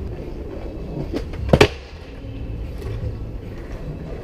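Skateboard wheels rolling over stone paving, then a loud double clack about a second and a half in as the board hits the ground off a three-stair set.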